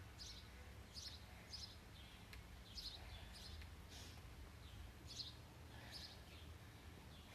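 Faint bird chirps: short, high calls that drop in pitch, about one a second and unevenly spaced, over a steady low hum.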